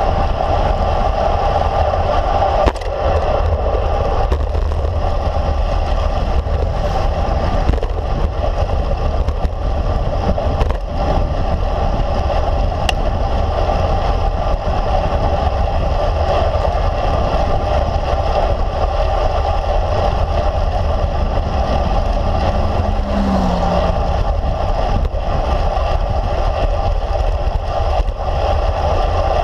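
Steady wind rush over a handlebar-mounted camera's microphone, mixed with the rolling noise of a road bike's tyres on asphalt at speed.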